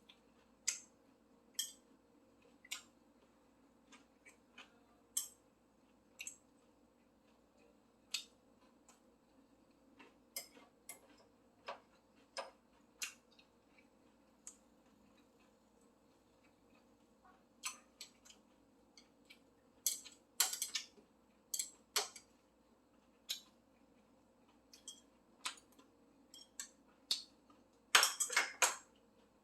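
Close-up eating sounds: sporadic sharp clicks and crunches of chewing, thickening into quick runs about twenty seconds in and again near the end, over a faint steady hum.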